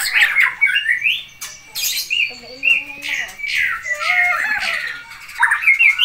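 White-rumped shama singing in its aviary: a rapid, varied song of whistles, slurred glides and sharp clicks, with some low warbled notes, ending in a burst of quick notes.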